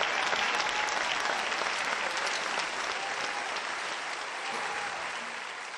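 Concert audience applauding after a song, the clapping slowly dying down.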